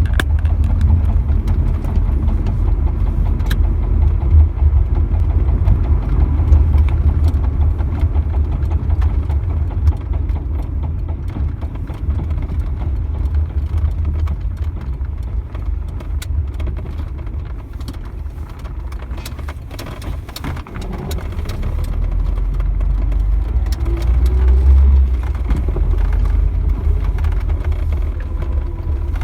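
GAZ-3110 Volga car running with a low steady rumble and a rhythmic knock from around the right rear wheel, the sign of a fault somewhere in the right rear wheel area. The rumble eases a little past the middle, then picks up again.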